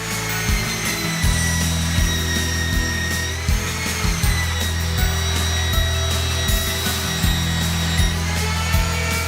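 Portable belt sander with a zirconia sanding belt running on wood, a steady motor whine that shifts in pitch a little twice. Background music with a steady beat plays underneath.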